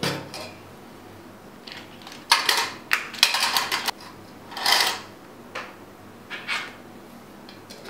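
Hard puzzle pieces and a small metal tin being handled: a quick run of clattering rattles about two seconds in, a louder scrape-like burst a little later, then a couple of separate light knocks.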